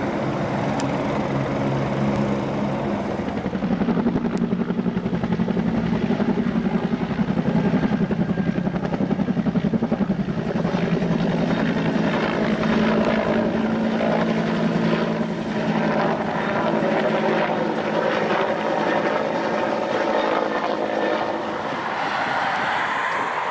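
Firefighting helicopter flying overhead: a steady engine hum with a fast, rhythmic rotor beat, thinning out near the end.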